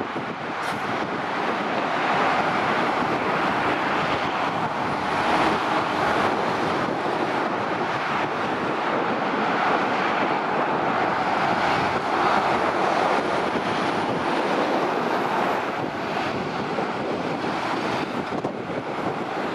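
Steady rush of heavy motorway traffic, lorries and cars passing in a continuous stream of tyre and engine noise.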